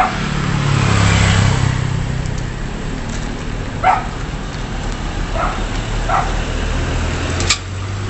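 Street traffic: a motorcycle passes close, its engine and tyre noise swelling and fading over the first couple of seconds, over a steady traffic hum. A dog barks three times in the background, and there is a sharp click near the end.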